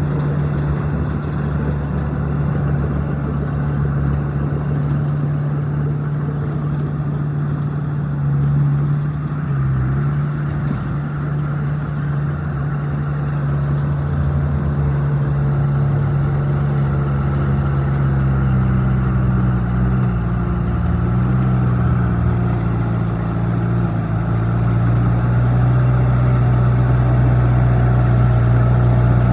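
Bulldozer's diesel engine running steadily while working, its pitch wavering a little and growing louder in the last few seconds.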